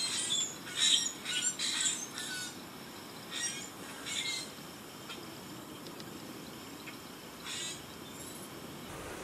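Birds calling: a quick run of short, high calls over the first couple of seconds, then a few more spaced out through the rest.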